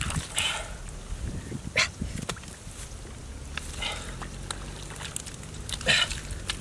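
Bare hands digging and scraping in wet mud among grass, giving short, irregular wet squelches and scrapes with a few sharp clicks.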